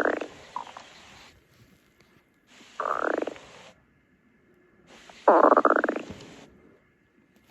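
Stomach growling in short, separate bursts: one fades out just as it begins, then two more come about three and five and a half seconds in, the last the loudest.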